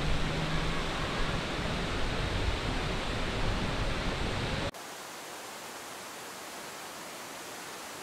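Steady rushing of a waterfall, a full even roar with a low rumble. It cuts off abruptly a little past halfway, giving way to a quieter, even hiss.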